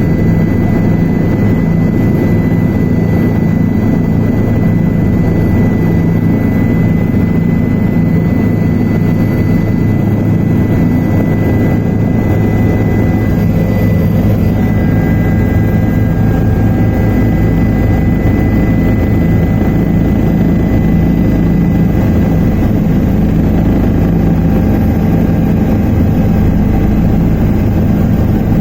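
Helicopter in flight heard from aboard: loud, steady engine and rotor drone with a thin, steady high whine above it.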